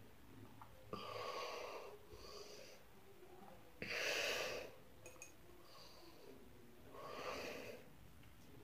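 A person breathing through the nose between sips of water: about five faint breaths, the loudest about four seconds in.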